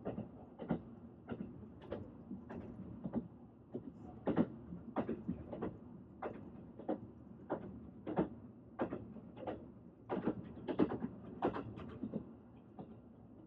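Train wheels running over rail joints, a rhythmic clacking roughly one to two times a second over a steady low rumble.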